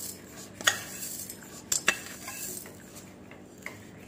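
Steel spoon clinking a few times against a steel pot while sugar is spooned into the milk.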